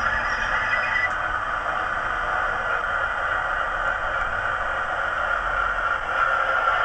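Sound decoder in a Hornby OO-gauge Class 60 model locomotive playing the diesel engine sound through its small bass-reflex speaker: a steady running sound with a hissy edge, a little louder about six seconds in.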